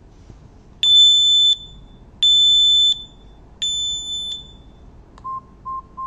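KERUI S20 smoke detector sounding three long, high-pitched beeps in a row when triggered by its test button, which sends its signal to the alarm panel for pairing. Near the end come four short, lower beeps.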